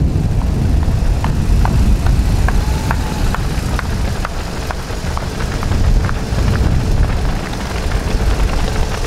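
A loud, steady low rumble of outdoor noise, with faint short clicks scattered over it.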